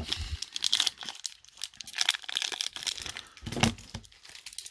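Plastic wrapper of a baseball trading card pack crinkling and tearing as the pack is handled and ripped open, in quick irregular crackles.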